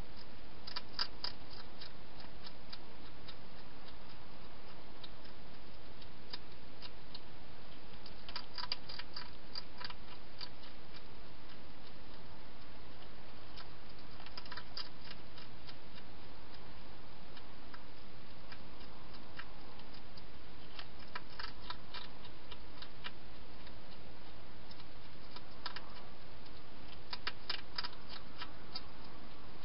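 Wild hedgehog eating from a bowl inside a plastic feeding box: bursts of sharp clicking chewing every five to seven seconds, over a steady hiss.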